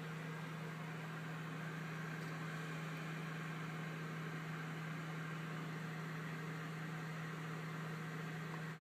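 A steady low machine hum with a constant hiss, cutting off abruptly near the end.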